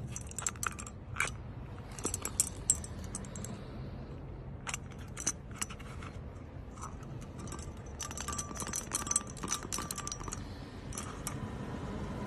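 Strips of metal hammer-tacker staples clinking and rattling against a magnetic fastener caddy as it is picked up and turned in the hand: scattered groups of sharp, light metallic clicks.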